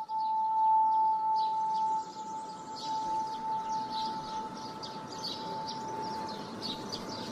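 A steady high tone holds through most of the stretch and fades out near the end. Over it, birds chirp over and over from about a second and a half in, as cartoon morning ambience.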